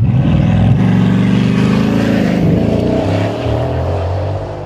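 Supercar engine accelerating hard, its pitch climbing for about two seconds, then dropping and fading as the car pulls away.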